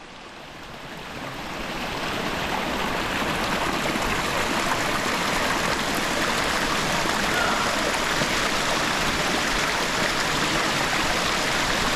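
A rushing stream: a steady, even rush of water that fades in over the first couple of seconds.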